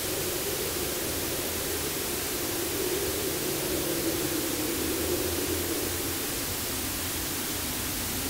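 Steady static hiss with a low droning band beneath it that swells about three to five seconds in and then eases off, over a faint steady low hum.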